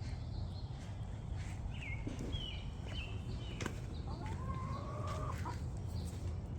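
Domestic chickens calling: a few short high calls about two to three seconds in, then one longer drawn-out call from about four seconds, over a steady low background rumble.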